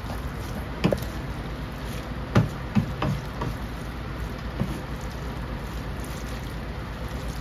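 A wooden spatula tossing noodles in a nonstick wok, giving a handful of short knocks and scrapes against the pan, the sharpest about two and a half seconds in, over a steady low background hum.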